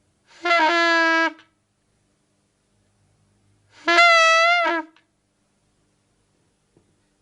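Two long, nasal, horn-like duck calls, each lasting about a second, the second one about three seconds after the first.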